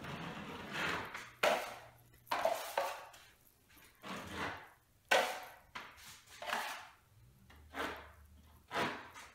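Drywall knife scraping all-purpose joint compound across a textured popcorn ceiling in a skim coat. About nine short rasping strokes, roughly one a second, with brief pauses between them.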